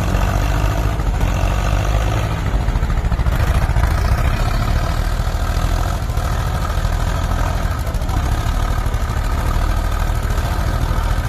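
Diesel tractor engines running hard under heavy load, a Sonalika Sikandar 52 HP and a second tractor straining against each other in a tractor tug-of-war. The sound is a loud, steady engine drone that holds the whole time.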